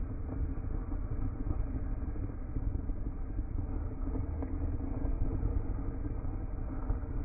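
Bunsen burner flame running with a steady low rumble while a test tube of potassium nitrate and vanadium is heated in it.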